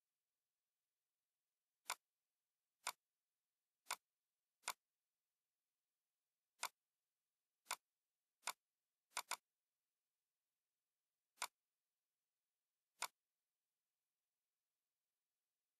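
Computer mouse clicking: ten sharp single clicks at uneven intervals, one of them a quick double-click a little after the middle.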